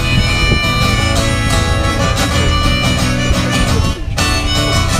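Live band playing an instrumental break with a harmonica solo carrying the melody over guitar and rhythm backing.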